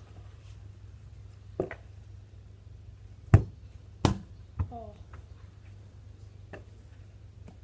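A football kicked hard, followed about a second later by the ball thudding against something and bouncing, with lighter knocks before and after; a brief vocal exclamation comes just after the bounce.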